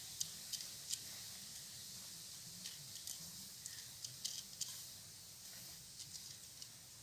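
A dry flour and breadcrumb coating mix being stirred in a bowl: faint, irregular scratchy ticks and clicks over a steady hiss.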